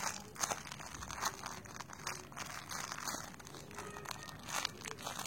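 Irregular crinkling and rustling with scattered small clicks as a macaron squishy toy is handled and squeezed.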